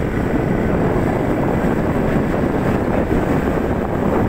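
Wind rushing over the microphone of a moving vehicle, with engine and tyre noise on a wet road underneath, in one steady, unbroken rush.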